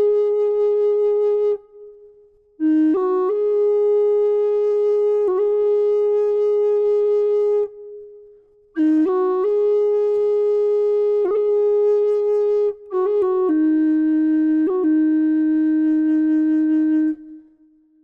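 A solo wind instrument playing a slow melody of long held notes with quick grace-note flicks between them, in phrases with short pauses. The last phrase settles on a lower held note that fades out near the end.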